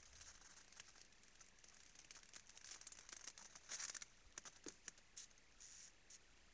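Faint, irregular crunching and crackling from moose moving and feeding on frozen snow at a salt lick, loudest a little under four seconds in.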